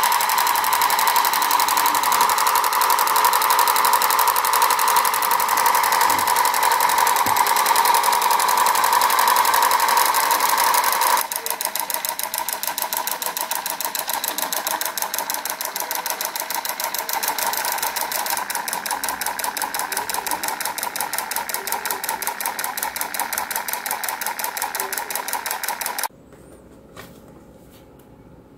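Motorised miniature Kubota diesel engine model running, a fast, even mechanical clatter like a tiny single-cylinder diesel. It gets somewhat quieter about eleven seconds in and stops suddenly near the end, leaving only light handling sounds.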